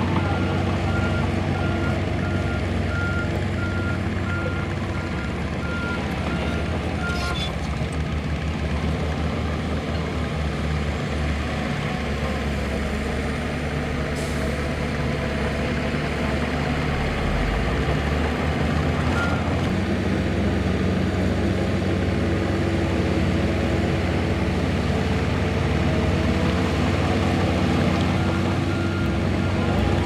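Diesel engines of a Shantui DH17C2 crawler bulldozer and dump trucks running steadily. A reversing alarm beeps in a steady repeating pattern for the first several seconds and again near the end as a dump truck backs up to unload. A few short hisses come in between.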